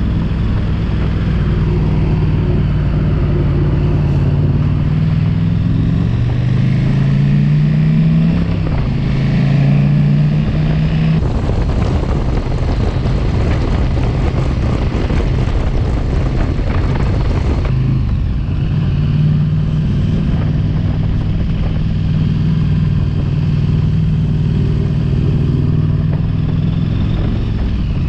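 Motorcycle engine running while being ridden, its pitch rising twice and breaking off at each gear change about a third of the way in. In the middle comes a stretch of rushing noise, then the engine settles into a steady cruise.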